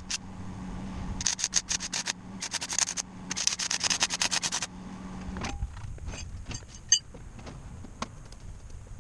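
Electric arc welder crackling in three short bursts of tack welding, over a steady hum that stops about five and a half seconds in. A few scattered metal clinks and knocks follow.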